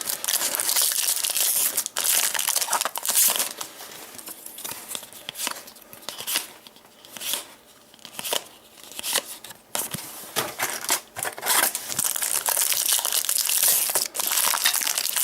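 Trading card pack wrappers being torn open and crumpled, with cards handled in between: a dense crinkling that eases off for a few seconds in the middle.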